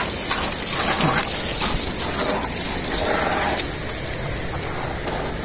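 Steady rushing and splashing of flowing water, an even hiss with no break.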